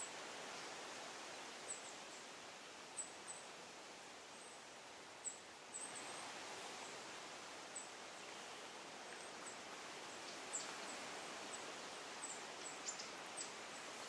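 Forest ambience: a steady soft hiss, with short, very high thin chirps at irregular intervals, a second or two apart, and a few closer together near the end.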